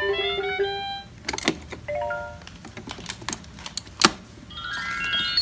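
VTech alphabet train toy playing short electronic jingles: one tune ends about a second in and a new rising run of notes starts near the end, with a brief three-note chime around two seconds. In between, hard plastic clicks and knocks as the toy and its letter blocks are handled, the loudest knock near the end.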